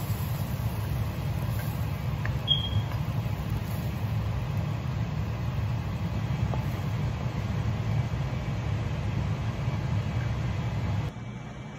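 A steady low rumble, with a few faint light clicks of a wooden spatula against a metal pan as food is scooped onto a plate. The rumble drops away abruptly near the end.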